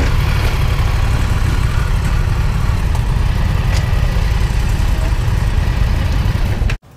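Indian Super Chief Limited's 116-cubic-inch Thunderstroke V-twin idling steadily. It cuts off abruptly near the end.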